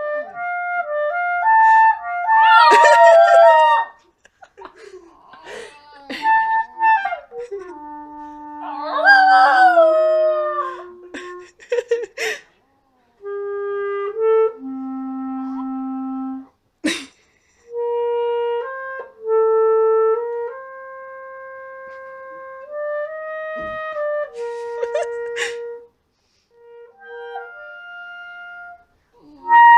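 A clarinet plays a slow, halting tune of held notes broken by pauses. A Cockapoo howls along in two long, wavering howls in the first half, then stays quiet while the clarinet carries on alone.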